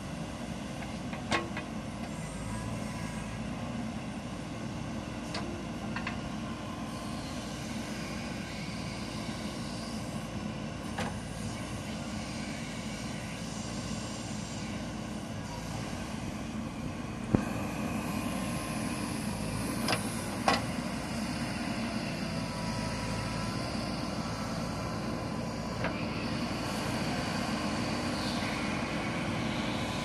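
JCB 3DX backhoe loader's diesel engine running steadily as the backhoe arm digs and swings soil, a little louder in the second half. A few sharp clanks stand out, the loudest about 17 seconds in and two close together about 20 seconds in.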